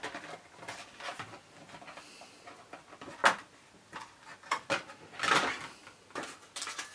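Die-cutting machine cutting plates and a metal plate being lifted apart and handled: scattered clicks and clatter of stiff plastic and metal sheets, with a sharp knock about three seconds in and a longer scraping rustle a little after five seconds.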